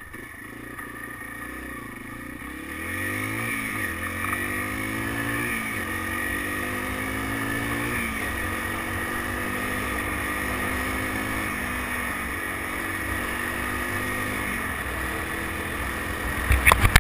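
Yamaha BW200's single-cylinder four-stroke engine running with a rattle, revs rising about three seconds in and then held with small rises and dips. A few loud knocks near the end.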